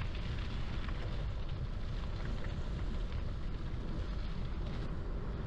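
Steady wind rumble on the microphone of a moving bike-mounted camera, with a hiss of gravel-bike tyres rolling over the trail.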